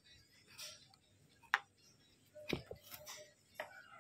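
Faint, scattered clicks and taps of small plastic headset parts being handled on a silicone work mat, about half a dozen in a few seconds.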